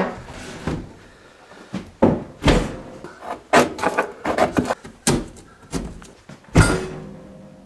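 A metal scraper scraping and knocking against the wall and granite countertop edge, with several sharp, irregular knocks and scrapes.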